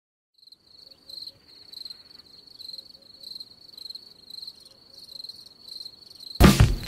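Crickets chirping, a high steady trill that pulses a little under twice a second; loud music cuts in near the end.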